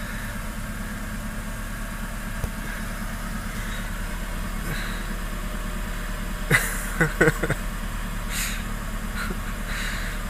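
Car engine idling steadily at the tailpipe, the exhaust carrying soap solution to blow bubbles. A few short sharp sounds come about seven seconds in.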